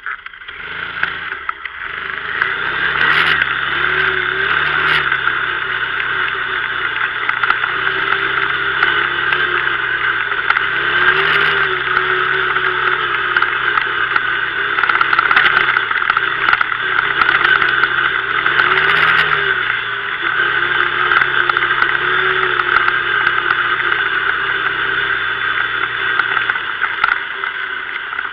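Kymco MXU 500 quad's single-cylinder four-stroke engine running during off-road riding. It picks up over the first couple of seconds, then runs on with its note rising and falling with the throttle several times.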